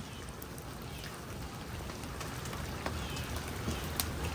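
Food frying over a wood fire: a steady crackling sizzle with scattered sharp pops, the loudest about four seconds in.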